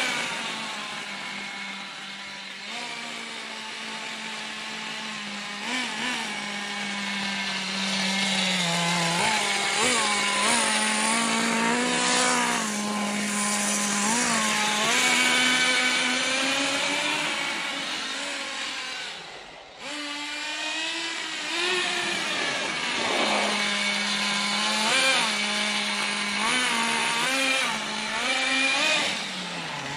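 Small nitro glow engine (Thunder Tiger Pro-18BXS) of a 1/10 RC monster truck running, with a high, buzzy note and frequent short throttle blips as it is driven. The sound dips briefly about two-thirds through, then picks up again.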